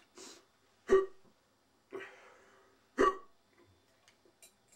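A person hiccuping sharply twice, about two seconds apart, with breaths between. It is part of a persistent bout of hiccups brought on by eating extremely spicy noodles.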